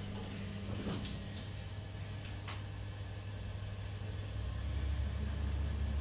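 Schindler Miconic V passenger elevator: a steady low hum with a few sharp clicks and knocks in the first seconds, then about four seconds in a louder low rumble as the car starts to travel.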